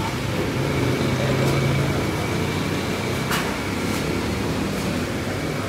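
Steady mechanical hum under an even hiss, with a sharp click about three and a half seconds in.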